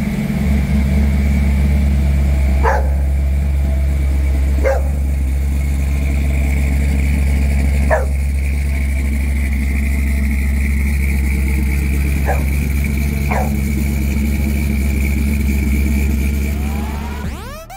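1957 Dodge D100 pickup's engine running steadily at low revs, a deep, even sound with no revving. A dog barks five short times over it.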